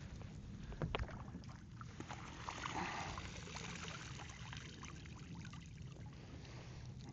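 Water trickling and splashing around a small boat, with a few light knocks, the clearest about a second in.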